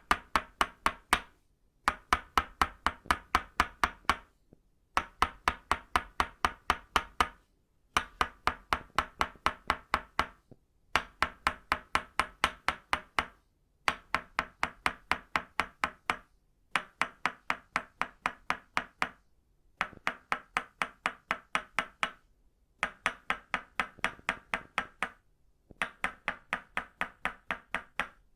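Tok Sen wooden mallet (kon) tapping a wooden stake (lim), both of itauba wood. The taps come fast and even, about five a second, in runs of a couple of seconds broken by short pauses. Each tap is a crisp, ringing knock of hard wood on hard wood.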